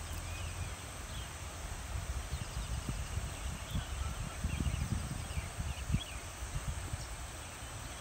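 Outdoor riverbank ambience: small birds chirping repeatedly in short calls, over a low rumble and buffeting on the microphone that is strongest through the middle.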